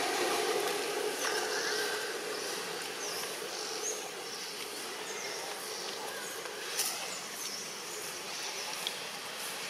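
Outdoor ambience: a steady background hiss, with a rumble of passing traffic fading out over the first two seconds and repeated short high chirps throughout. One sharp click comes about seven seconds in.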